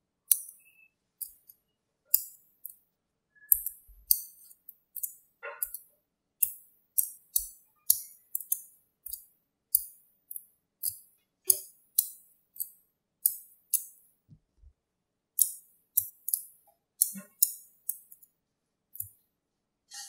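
Small magnetic balls clicking sharply as small clusters are snapped onto a larger ball structure, one crisp click at a time, about one or two a second at an uneven pace.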